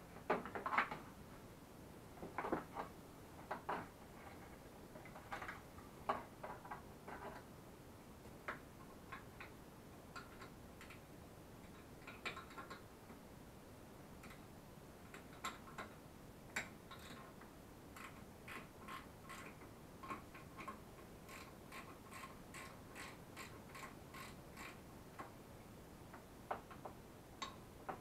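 Faint handling knocks and rattles of the quad's plastic front panel in the first several seconds. From about midway to near the end comes a run of light, evenly spaced clicks, about three a second, as a wrench turns the headlight mounting nut.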